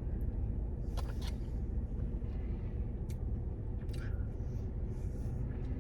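Steady low rumble of an idling car engine heard from inside the cabin, with a few faint clicks or rustles now and then.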